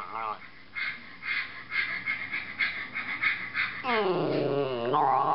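Bichon frise howling about four seconds in: a drawn-out yowl that slides down in pitch, then a second one rising near the end, its reaction to a video it dislikes.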